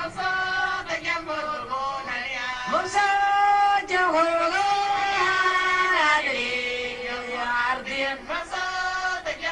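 A hakama, a western Sudanese woman praise singer, singing in long held notes that step and slide in pitch.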